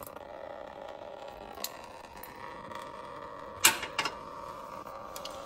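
A thin stream of coolant running from an opened radiator drain valve and splashing steadily into a small bucket, draining slowly. Two sharp clicks come a little past halfway.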